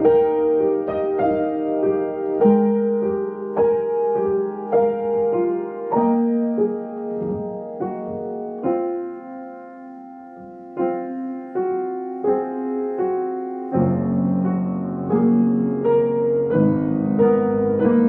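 Piano playing a slow, gentle piece in rolling chords, each note struck and left ringing. It grows softer about halfway through, then deeper bass notes come in about three-quarters of the way through.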